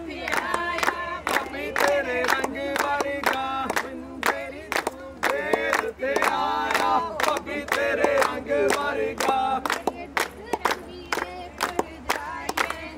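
A group of voices singing a Punjabi folk song together over sharp, evenly spaced beats, about three to four a second.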